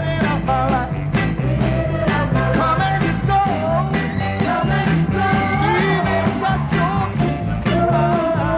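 A 1960s soul record playing: a band with bass and drums under a singing voice.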